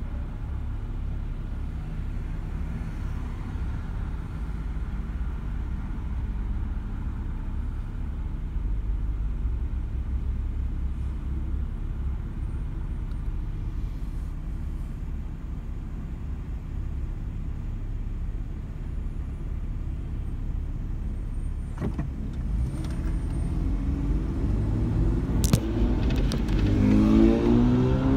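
Car engine and road noise heard from inside the cabin: a steady low rumble for most of the time, then the engine's pitch climbing as the car accelerates away over the last few seconds, with a sharp click or two just before.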